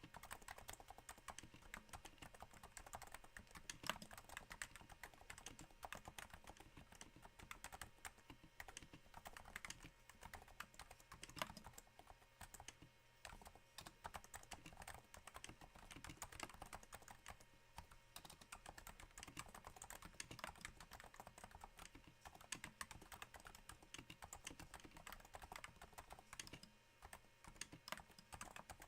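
Steady, quiet typing on a Cooler Master Novatouch's Topre switches damped with Hypersphere silencing rings: a dense run of soft key strokes, with a couple of louder strokes about 4 and 11.5 seconds in. The keyboard sits on a thin desk mat.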